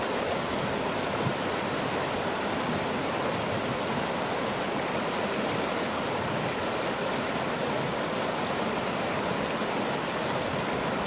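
Creek water rushing steadily over rocks through a shallow rapid.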